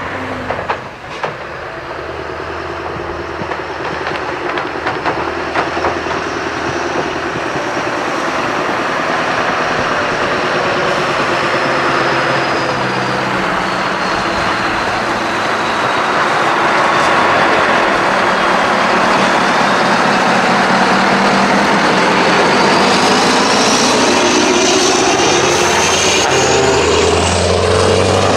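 Scania R500 V8 diesel truck with straight-pipe exhausts running loudly, growing steadily louder over the first twenty seconds or so and then holding, with a faint high whine rising near the end.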